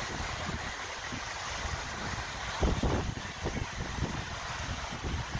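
Wind buffeting the microphone over the wash of small waves breaking on a beach, with a stronger gust about halfway through.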